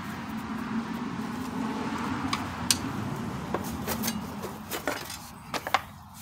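Plastic engine shroud of a lawn tractor engine being worked loose and lifted off, giving a run of sharp clicks and knocks from about two seconds in, over a steady low rumble that fades away near the end.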